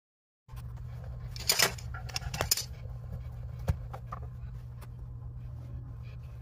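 Small metallic clinks and taps of brass plumbing fittings being handled under a sink, a few scattered sharp clicks over a steady low hum.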